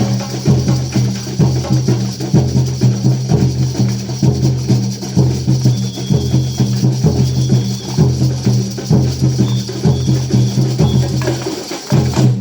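A band playing at rehearsal: held low bass notes under a steady percussion beat. The music stops abruptly near the end.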